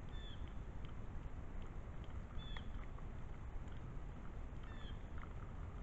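Quiet outdoor ambience: a steady low rumble of wind on the microphone, with a short high call, dipping slightly in pitch, repeated about every two seconds, and a few faint ticks.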